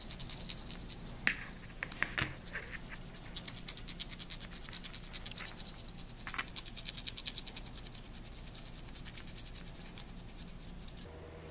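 Paintbrush dry brushing a small plastic bat skeleton: rapid, steady scratching of the bristles over the plastic ribs, with a few light clicks a second or two in. The scratching stops just before the end.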